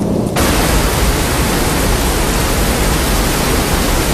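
Heavy rain pouring down as a cartoon sound effect: a loud, steady rushing hiss with a low rumble underneath, cutting off suddenly near the end.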